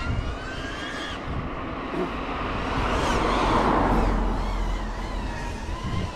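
Small FPV quadcopter's motors whining, the pitch wavering up and down with the throttle. A louder rushing swell builds and fades around the middle.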